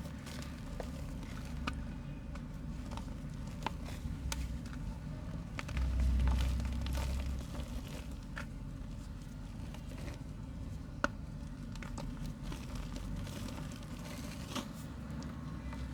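Soft mud being crumbled by hand: scattered small crackles and clicks over a steady low rumble, with a louder low rumble for about a second and a half around six seconds in.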